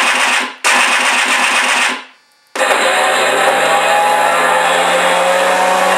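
An MR RC Sound V4 electronic sound module in an FMS P-51B model plays simulated warbird sounds through its speaker. There are two short bursts with a fast pulsing beat, a brief pause, then a steady simulated piston-engine sound whose pitch rises slightly.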